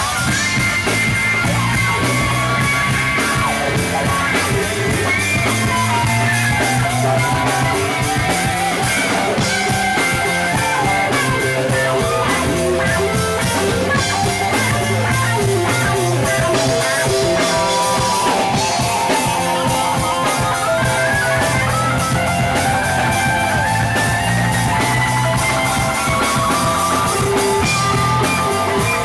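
Live rock band playing: electric guitars over a drum kit, with a guitar line gliding up and down in pitch.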